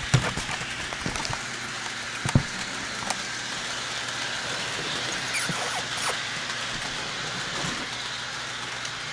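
HO-scale model train running along its track: a steady rolling noise with light wheel clicks and a faint motor hum. A couple of sharp knocks come in the first few seconds.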